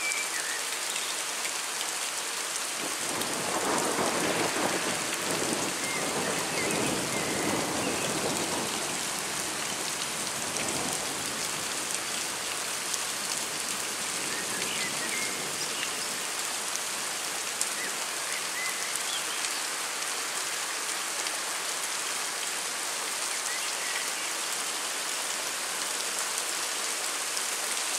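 Heavy rain falling steadily, with a low rumble of thunder that builds about three seconds in and dies away by about eleven seconds.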